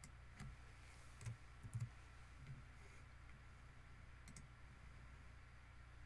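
Faint clicks of a computer mouse and keyboard, about half a dozen spread over several seconds, over a low steady hum.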